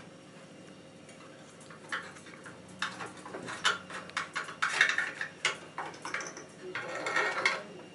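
Clinking, clicking and brief scraping of hard tools being handled at a knife-sharpening jig, beginning about two seconds in.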